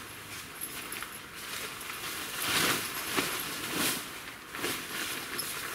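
Nylon fabric of a tent's hanging inner being lifted and shaken out, rustling in several soft swishes; the loudest comes a little over two and a half seconds in.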